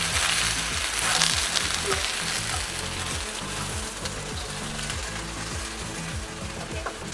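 Signal crayfish sizzling in hot oil in a wok, stirred with a wooden spatula. The sizzle is strongest in the first couple of seconds and then eases off.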